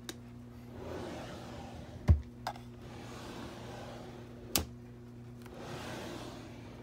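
Desk drawers sliding on their runners and knocking shut: a rubbing slide about a second in ends in a low thud, further sharp knocks follow, and a second slide comes near the end. A steady low hum runs underneath.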